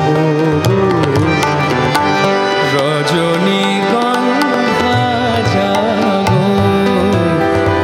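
Two male vocalists singing a Bengali raag-based song in raag Jogmaya, accompanied by tabla, harmonium and a tanpura drone. The melodic line bends and ornaments over a steady drone, with a continuous pattern of tabla strokes.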